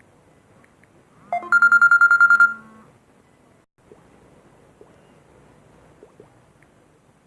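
A phone's electronic alert sounding about a second in: a short rising tone, then a fast trill of loud high beeps, about ten a second, lasting around a second, with a low hum beneath.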